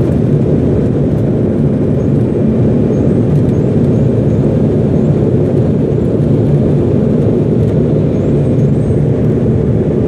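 Cabin noise of an Embraer E170 climbing after takeoff: a steady, loud low rumble from its GE CF34 turbofan engines and the airflow over the fuselage.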